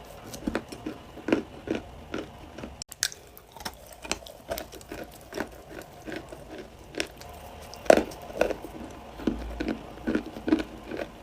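Crunchy clay being bitten and chewed: a run of sharp crunches at an uneven pace, the loudest about eight seconds in.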